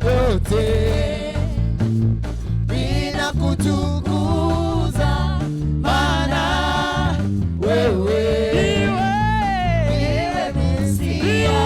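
Gospel praise song: singing voices with gliding, held notes over a band with steady bass and drums.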